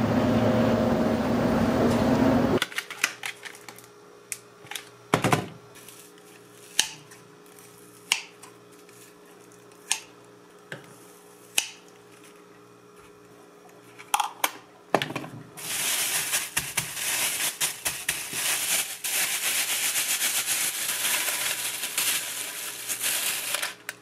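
Kitchen scissors snipping raw chicken breast into pieces, one sharp snip every second or two. After that comes a long stretch of crinkly rustling from the plastic bag and parchment paper. At the very start there is a couple of seconds of steady city-bus ride noise.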